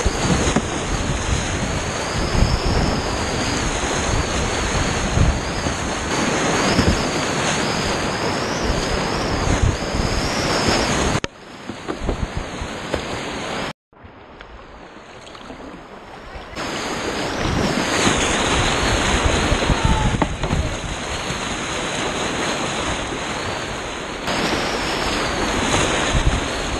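River rapids rushing loudly as a kayak runs through whitewater, with splashing from the bow and paddle. About eleven seconds in it drops to a quieter flow on calm water, cuts out for a moment, and the loud rapids return about five seconds later.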